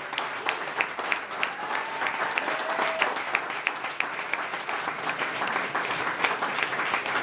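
Audience applauding, with one nearby person's claps standing out at about three a second.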